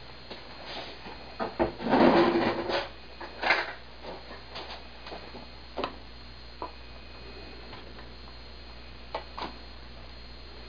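Kitchen handling sounds of a jug of frothed milk and a metal spoon: a louder clattering handling noise about two seconds in, then scattered light clicks as the spoon knocks against the plastic frothing pitcher while scooping out milk foam.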